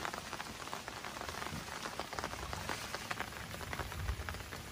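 Steady rain falling on river water, a dense, even spatter of drops.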